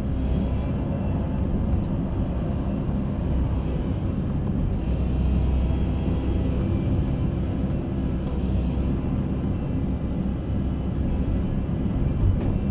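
Concrete mixer running: a steady engine rumble with a faint steady hum over it.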